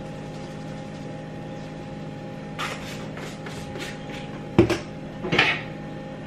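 A seasoning shaker shaken over a pot in a quick run of about half a dozen short rattling strokes. A sharp knock follows about four and a half seconds in, then a clatter of kitchenware soon after. A steady low hum runs underneath.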